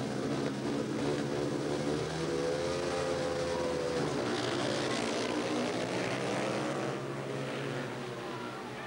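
Four 500cc single-cylinder speedway bikes revving at the start gate, their engines rising and falling in pitch, then accelerating away together as the race starts and growing fainter about seven seconds in.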